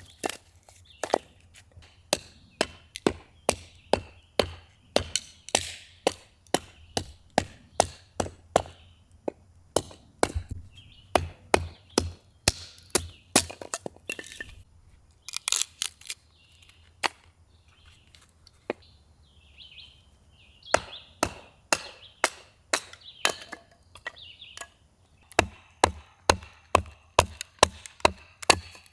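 A long series of sharp chopping knocks on wood, about two a second, pausing and thinning out around the middle before picking up again.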